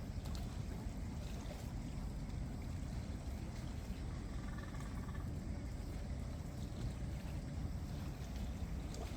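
Steady low rumble of rain and sea at the shore, with faint trickling and a few scattered drips. A faint brief tone sounds about halfway through.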